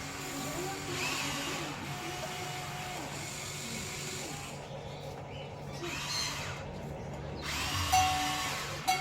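Small electric motors of a remote-control toy excavator whining steadily as the machine works, with a sharp knock near the end.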